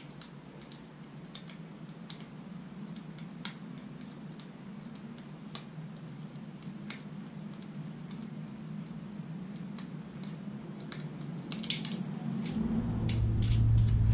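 Small clicks and taps of hand-held metal and plastic camera parts being worked apart, over a steady low hum. A louder clatter of clicks comes a little before the end, and a deeper hum grows in the last two seconds.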